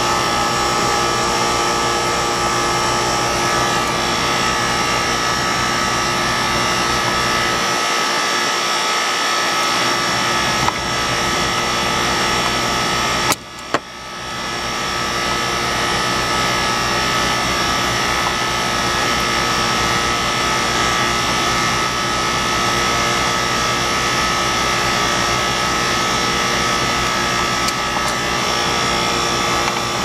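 Sanyo split-system outdoor condensing unit running, a steady fan and compressor noise with several steady tones through it. A couple of sharp knocks come about halfway through.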